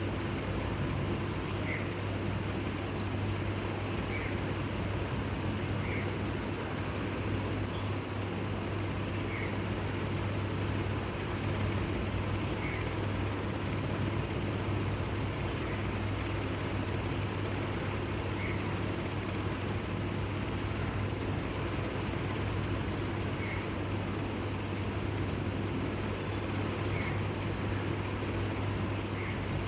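Steady low hum and rumbling background noise, with a faint short bird call about every two to three seconds.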